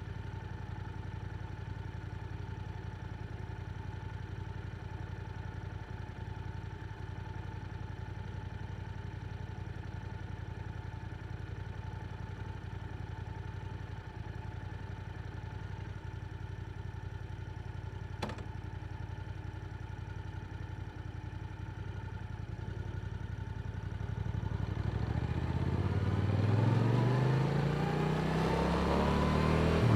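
Yamaha R7 parallel-twin motorcycle with an Akrapovic exhaust idling steadily, a single click about 18 seconds in, then pulling away near the end with the engine note rising through a gear change.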